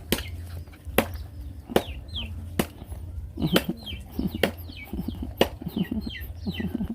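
Chicks peeping in short falling cheeps, with lower clucking calls from the fowl. Sharp clicks come about once a second.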